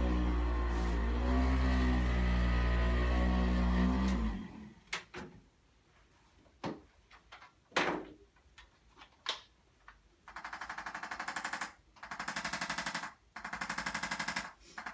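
Background music stops about four seconds in, followed by a few scattered clicks and knocks. From about ten seconds an electric percussion massager runs in three bursts of fast, even pulsing as it works the muscles.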